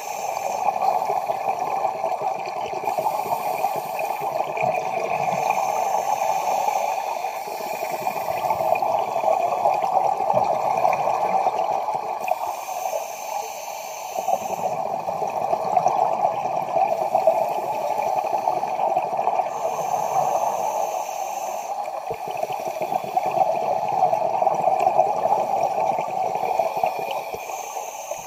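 Scuba diver breathing through a regulator underwater: a hiss on each inhalation every few seconds, alternating with rumbling, gurgling exhaled bubbles, over a steady underwater hiss.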